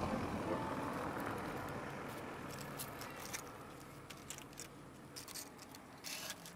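The last of the background music fades away, leaving faint, scattered scratches and rustles from a kitten clambering over a weathered wooden fence board.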